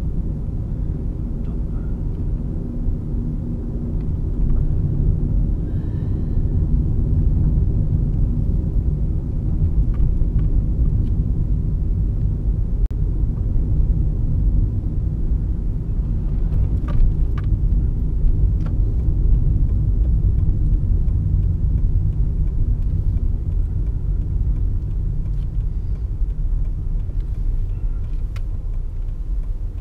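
Car cabin noise while driving slowly: a steady low rumble of engine and tyres on the road, with a few faint ticks around the middle.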